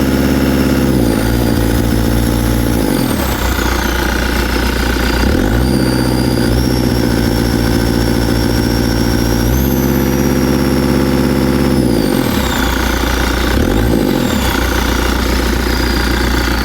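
Cat 277B compact track loader's 3044C-T four-cylinder turbo diesel running as the throttle is moved up and down several times between steady speeds, with a high whine that falls as the engine slows. The owner says it runs well at idle and full throttle but misfires, puffing smoke, in the mid range, and suspects worn injectors or the injection pump.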